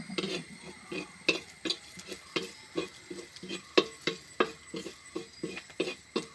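A spoon stirring crushed dried red chillies frying in hot coconut oil, knocking against the pan about three times a second.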